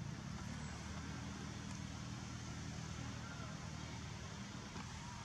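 A low, steady engine rumble, like a motor vehicle running nearby.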